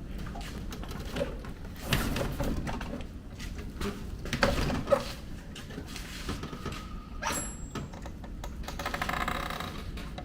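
Scattered clicks and knocks of hand work on metal parts, with a brief high ring a little after halfway.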